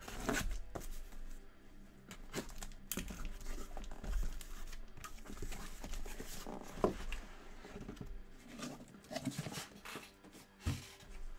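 Cardboard half case of Topps Tier One hobby boxes being opened and unpacked by hand: crinkling and scraping of cardboard with irregular knocks as the boxes are slid out and stacked.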